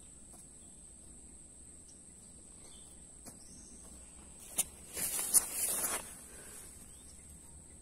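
Steady high-pitched chorus of insects. About four and a half seconds in, a click and then about a second of close footsteps crunching and rustling on dry leaf litter and sand, the loudest sound here.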